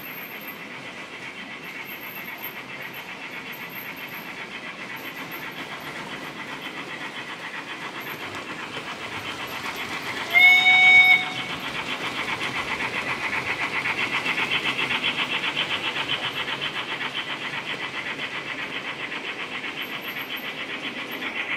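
DCC sound decoder of a OO gauge model Terrier tank engine running: a fast, even beat of chuffs over the wheels on the track, growing louder as the train comes past. A single whistle blast of about a second sounds about ten seconds in, the loudest sound.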